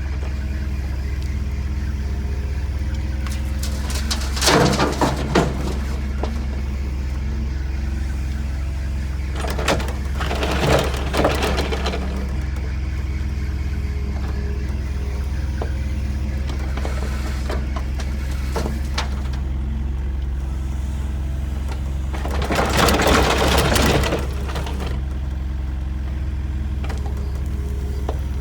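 Diesel engine of heavy construction equipment running steadily at a constant low drone. Several short bursts of rough, noisy clatter come over it, about four seconds in, around ten seconds, around twenty-three seconds and near the end.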